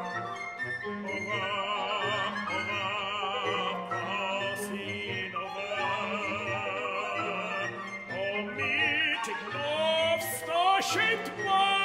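Contemporary classical music for chamber orchestra with an operatic solo voice: high melodic lines with wide vibrato over a pulsing low figure, with sharp percussive accents near the end.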